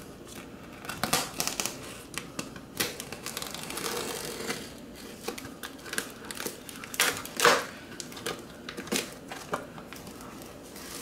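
Small pocket knife slitting the packing tape on a cardboard shipping box: scratching and rustling of tape and cardboard with irregular clicks, the loudest scrape about seven and a half seconds in.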